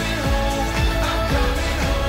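Background music: a pop-style track with a steady beat and held melodic notes.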